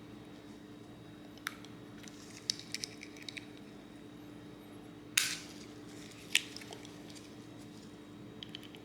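Small metal clicks and scrapes of an Allen wrench prying a small bearing out of a 3D printer extruder part, worked a little at a time, with two louder sharp clicks about five and six seconds in.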